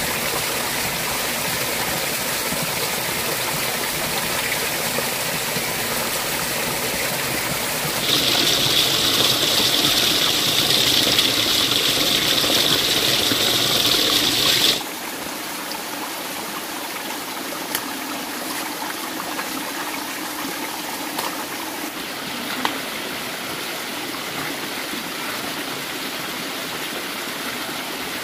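Steady rush of flowing water, as of a stream. A louder, higher hiss joins about eight seconds in and cuts off suddenly about fifteen seconds in, leaving a slightly quieter rush with a couple of faint clicks.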